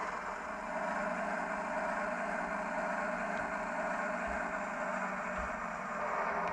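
Diesel engine sound from the YouChoos sound decoder in a Heljan GWR AEC railcar model, running steadily as the model moves slowly, with a couple of soft low knocks in the second half.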